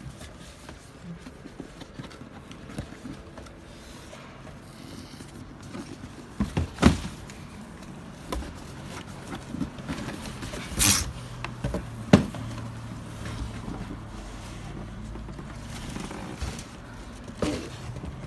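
Parcel and shoe-box packaging being handled and opened by hand: scraping and rustling, several sharp knocks, and a short noisy rustle about eleven seconds in. A low steady hum sits underneath from about then on.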